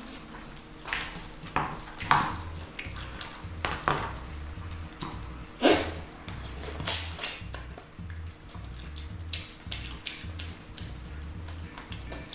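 Eating fried chicken: scattered short crunches, crackles and clicks of chewing and handling the food, over background music with a repeating low beat.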